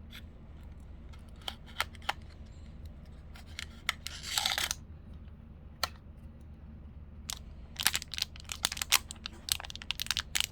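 Blind-box packaging for an enamel pin being handled and torn open: scattered sharp clicks and taps, a short tear about four seconds in, then a quick run of clicks and crinkles near the end.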